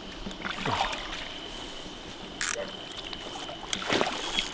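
Water splashing and sloshing as a landed carp moves in a landing net at the water's edge and the net is lifted, with one short, sharp splash about halfway through.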